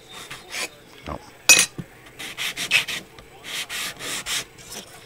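Plastic model-kit wall pieces rubbed on a sheet of sandpaper: a run of short, irregular scraping strokes, grinding material off the parts.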